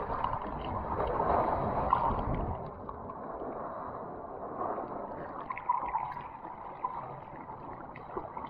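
Ocean surf heard from a camera at the water's surface: waves breaking and whitewater rushing and sloshing close around the lens, loudest in the first couple of seconds.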